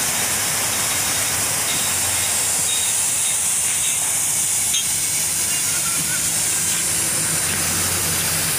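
Loud, steady hissing noise, brightest at the top of the range, with a faint low hum underneath from about halfway through.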